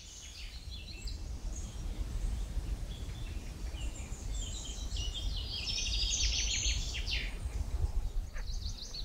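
Songbirds singing and chirping, with a dense run of song about six seconds in, over a steady low rumble.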